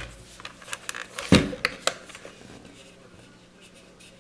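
Knocks and clicks of a plastic clock radio being handled and turned round on a wooden tabletop. The loudest is a dull thump about a second and a half in, followed by fainter rubbing and handling noise.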